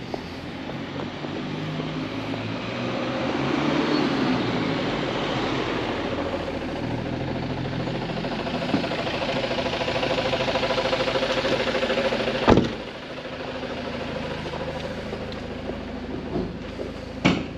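A white panel van's engine running as the van drives slowly up and past close by, a steady hum that swells as it nears. A single sharp knock about two-thirds of the way through is the loudest sound, with a smaller one near the end.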